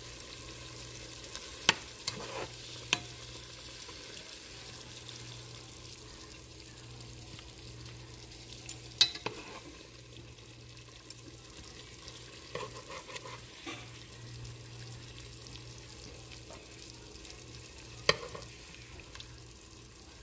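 A metal spoon clinking against a ceramic plate and pot rim as fish and ginger are served, a handful of sharp clinks spread through. Under it run a steady hiss and a low hum.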